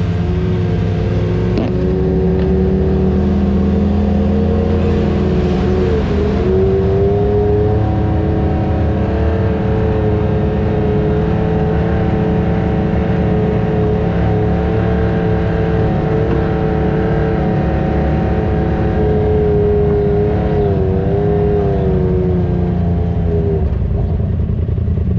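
Side-by-side UTV engine running at steady, moderate revs, heard from inside the vehicle's cab, with a couple of brief wavers in pitch as the throttle is eased and reapplied.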